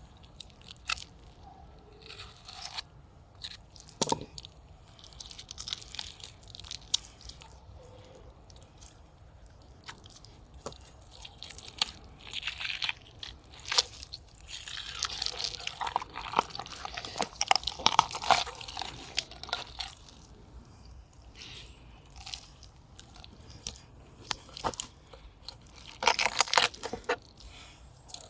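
Knife blade cutting through a fish, crunching and scraping through scales and bones in irregular crackling strokes, with a longer rasping stretch near the middle and another burst near the end.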